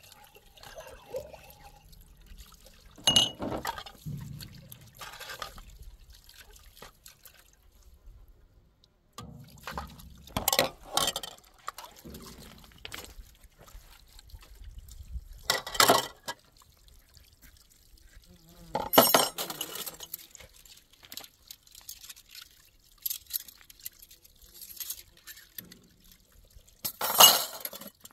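Dishes being washed by hand in a plastic basin of water: short bursts of splashing and sloshing water every few seconds, with metal pots and plates clinking against each other.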